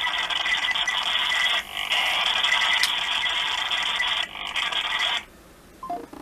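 Loud hissing static from a phone's speaker as a call is placed. It drops out briefly twice and cuts off suddenly about five seconds in.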